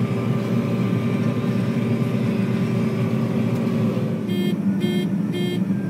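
Combine harvester running steadily at work, heard from inside the cab as a constant mechanical drone. Near the end come three short electronic beeps, about half a second apart.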